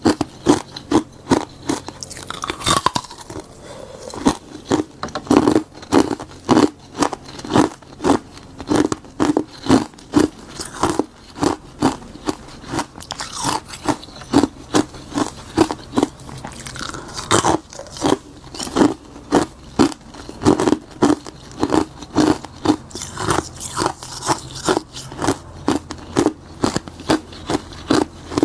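A person biting and chewing hard ice made from frozen bitter-buckwheat tea: a steady run of sharp, brittle crunches, several a second.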